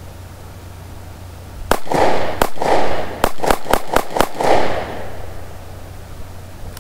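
Taurus PT 709 Slim 9mm pistol fired rapidly, about seven shots in under three seconds starting a couple of seconds in, each shot ringing out briefly. The magazine of steel-case ammunition runs through without a jam.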